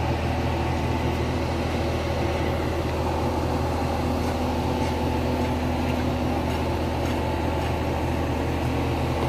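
Engine of a mobile crane running steadily while it holds a hoisted load, a constant low hum with a few steady tones above it.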